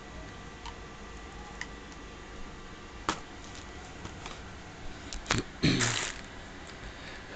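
Handling noises from a cast-iron hand riveter: a sharp click about three seconds in, then a few quick clicks and a short clatter near the end as it is handled and set down.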